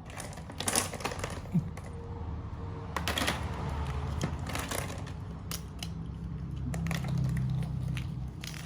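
Irregular light clicks and rattles of small hard objects being knocked about, with a low hum that swells briefly near the end.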